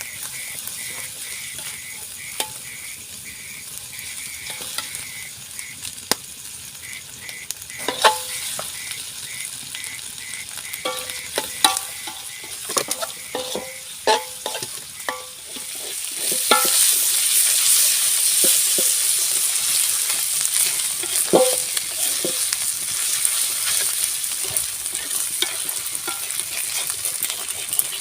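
Metal cookware clinking and scraping, then, about halfway through, a sudden loud sizzle as food goes into hot oil in a pan. The sizzle keeps going steadily after that.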